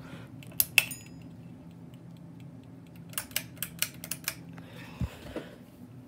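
Sharp metallic clicks and clinks from the pull chain of a Harbor Breeze Grace Bay ceiling fan as it is pulled and swings against the light kit: two clicks about half a second in, then a quick run of about seven more a few seconds later, over a low steady hum.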